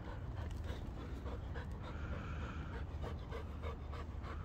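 A dog panting rapidly with its mouth open, with scattered short scuffs and clicks.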